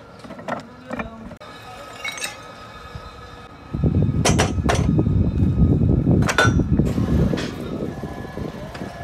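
Scrap cast-iron brake-drum pieces clinking and clanking as they are handled and stacked, with a little ringing after some strikes. About four seconds in, a loud low rumbling noise comes in suddenly under several sharp metal clanks, then eases off after a few seconds.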